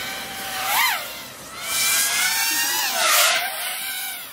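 FPV quadcopter's motors whining as it flies. The pitch climbs sharply and drops about a second in, rises again and holds, then falls, with a loud rush of air noise about three seconds in.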